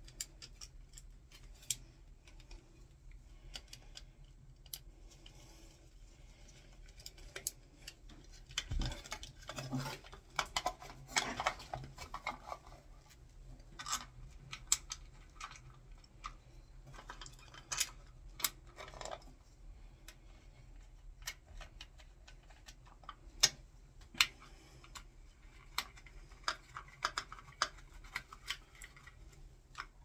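Small clicks, taps and scrapes of hands and a screwdriver working a plastic light-switch plate, its wires and its back box as the switch is fitted, with short stretches of rustling and two louder clicks about two thirds of the way in.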